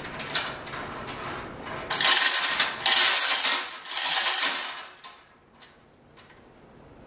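Manual chain hoist being worked by its hand chain: three loud bursts of chain rattling through the hoist, each under a second, with a single clank before them.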